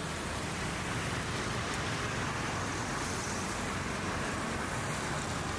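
Steady city road traffic noise, a continuous wash of vehicles with no single one standing out.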